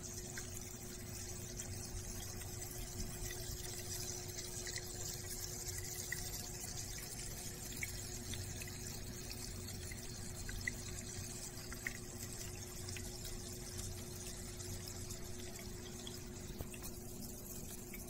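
Small tabletop water fountain running: water trickling steadily, with a steady low hum from its submersible pump and a few faint drips.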